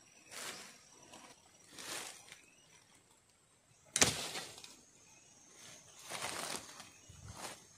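A wooden pole deadfall trap being sprung by hand: the upper pole drops and knocks sharply onto the lower pole about four seconds in. Softer rustles of dry leaves and sticks come before and after as the trap is handled.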